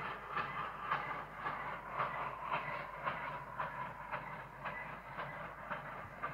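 Steam locomotive working, its exhaust beats coming at an even pace of about two a second over a steady hiss.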